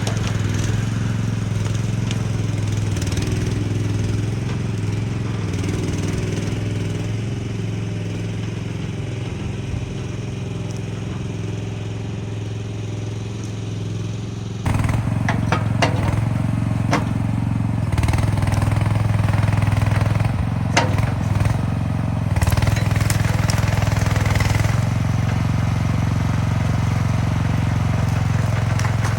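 Chinese mini skid steer loader's engine running steadily. About halfway through the sound gets suddenly louder and fuller, with a scatter of sharp knocks as the machine works.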